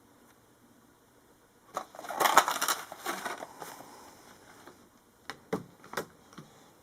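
Packaging being handled: a rustling, crinkling stretch about two seconds in, then a few light clicks near the end.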